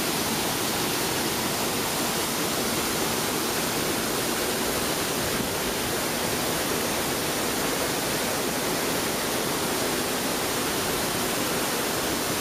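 Large waterfall (Thi Lo Su, Thailand's biggest falls) heard close up: a steady, even rush of falling water with no pause or change.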